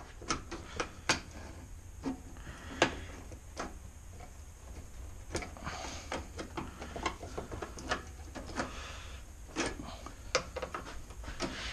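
Irregular clicks and taps of a metal trim tool and screwdriver prying at plastic push-pin clips on a pickup truck's plastic radiator cover.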